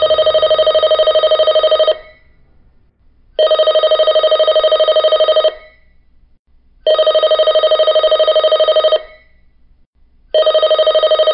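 Telephone ringing: four rings of about two seconds each, evenly spaced with short gaps between them, each ring a rapid warbling trill; the last ring begins near the end.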